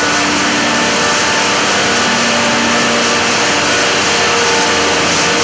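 Cotton gin machinery running: a loud, steady, even noise with several steady humming tones through it.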